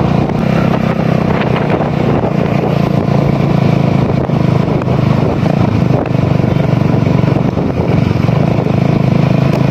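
Motorcycle engine running steadily while riding at an even speed, heard from the rider's seat, with steady wind and road noise.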